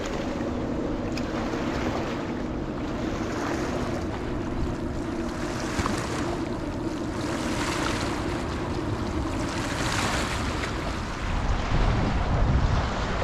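Wind buffeting the microphone over choppy water lapping along the shore, with gusts heavier near the end. A steady low drone runs under it for the first half, then fades.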